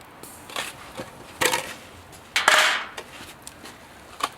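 A handful of sharp knocks, with a louder scraping clatter lasting about half a second roughly two and a half seconds in.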